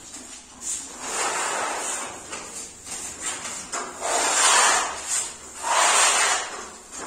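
Putty knives scraping and spreading a first coat of wall putty across a plastered wall, in rasping strokes about a second long, the loudest two in the second half.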